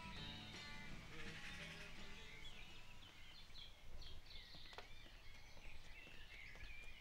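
Outdoor ambience with birds chirping on and off, and a few footsteps on a paved path in the second half. The tail of a guitar tune fades out in the first second.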